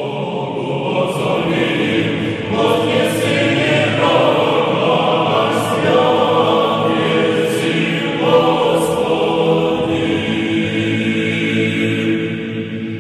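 A choir singing slow, long-held chords.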